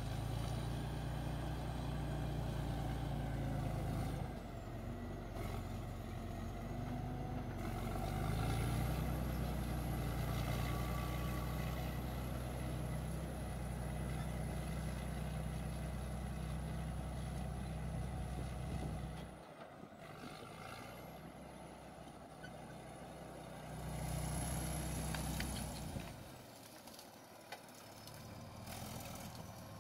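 Bulldozer's heavy diesel engine running steadily with a thin high-pitched whine over it. About two-thirds of the way through the engine falls away, swells again briefly, then drops once more near the end.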